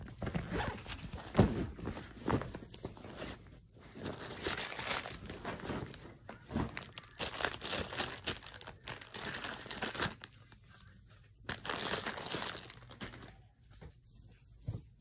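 Irregular crinkling and rustling of a plastic face-wipe packet being handled and a wipe being pulled out and used. The sound is busiest through the middle and thins out near the end.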